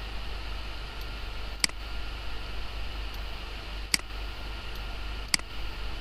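Three sharp computer-mouse clicks, spaced one to two seconds apart, over a steady low hum and hiss.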